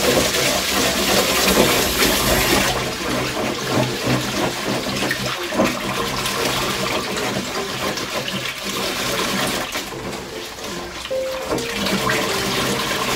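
Kitchen tap running into a bowl of rice, then about three seconds in the water stops and rice is gently stirred by hand in the bowl, a busy patter of small swishes and grain rustles. Near the end the tap runs again for the next rinse.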